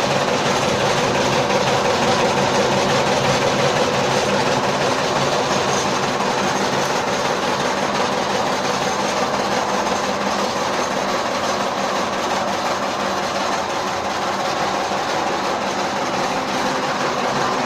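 Chaff cutter running steadily: an even machine hum with a dense rattling whir over it.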